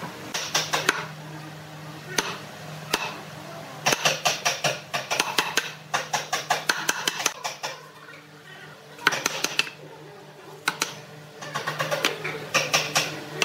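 Steel wood chisel chopping and levering chips out of a square mortise in a hardwood slab: quick bursts of sharp cracks and scrapes, with short pauses between them.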